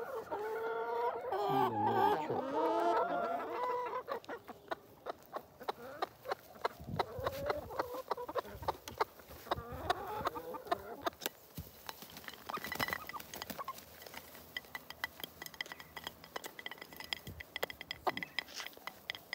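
A flock of hens clucking and calling as they feed, loudest in the first few seconds, with many short sharp taps of beaks pecking at food on the ground.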